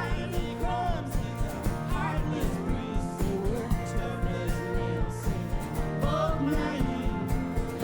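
A live indie country-rock band playing a song: a lead vocal sings over guitars, bass and drums keeping a steady beat.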